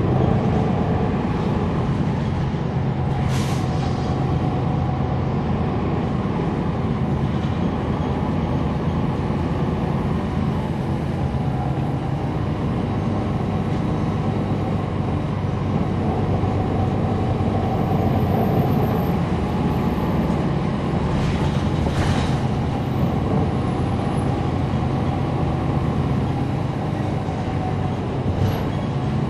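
Interior sound from the rear of a 2011 NABI 416.15 (40-SFW) transit bus with its Cummins ISL9 diesel engine running steadily. Short hisses of air from the air brakes come about three seconds in and again past twenty seconds.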